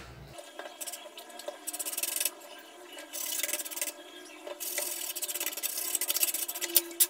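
A stiff plastic toothbrush scrubbing a laptop motherboard in several bursts of quick back-and-forth strokes, the longest near the end, cleaning burnt residue near the charging port. A sharp tap just before the end.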